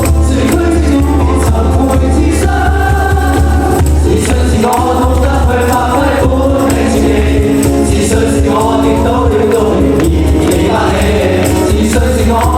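Live pop-rock band performance: group vocals singing a melody over drums, cymbals and heavy bass, loud and continuous.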